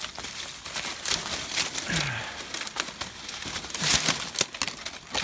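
Dry branches, twigs and dead leaves crackling and snapping as someone pushes through a brush pile, in irregular cracks with the loudest snaps about four seconds in.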